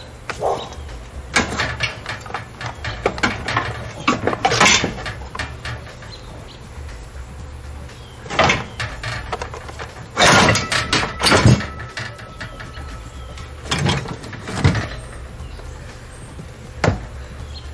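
Knocks, clunks and scrapes of a lawn mower engine being lifted and set down onto a metal go-kart frame and shifted into place by hand, loudest in a cluster about ten to eleven seconds in.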